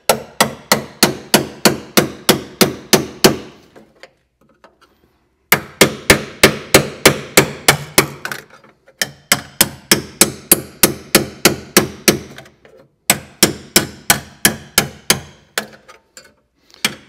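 Ball-peen hammer striking an all-metal chisel driven into a spot-welded sheet-steel seam, splitting the panels apart: rapid ringing metal-on-metal blows, about four a second, in four runs with short pauses between them.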